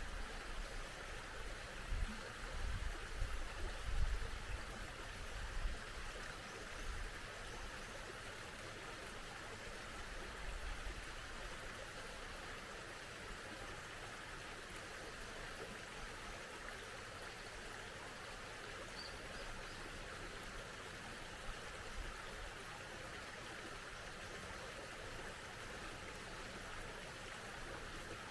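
A small mountain stream flowing with a steady, even rushing. Low rumbles come and go during the first several seconds, and a single faint high chirp sounds about two-thirds of the way through.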